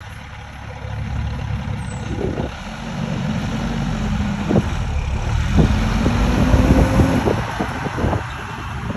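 An engine running steadily, a low hum over a rumble.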